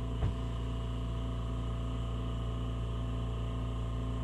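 Oxy-propane torch flame burning steadily with a constant low hum. A single short click comes about a quarter of a second in.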